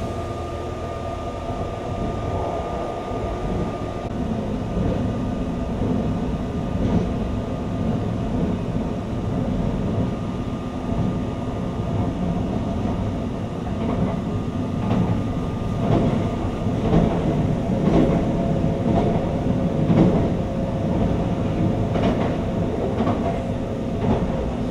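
Running noise of the JR East E655 series 'Nagomi' train heard from inside the car: a steady rumble of wheels on rails, with a series of clacks over rail joints in the second half.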